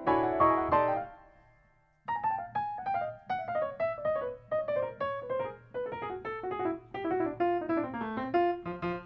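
Solo piano music: a few chords ring out and die away, then after a short pause a melody of single notes begins, stepping downward in pitch at about three or four notes a second.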